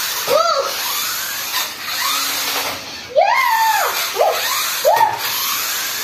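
Electric motors of toy remote-control monster trucks whining in short bursts as the throttle is pulsed, each rising and then falling in pitch, over a steady hiss. The loudest burst comes about three seconds in.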